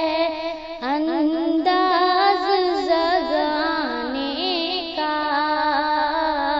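A woman singing an Urdu naat, her voice gliding through long, ornamented notes, with overlapping layered voice lines.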